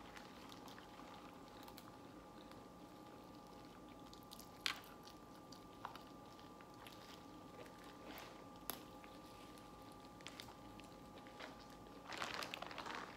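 Quiet eating of a seafood boil: chewing, with a few sharp clicks and cracks of crab and crawfish shells a couple of seconds apart and a louder crackling patch near the end.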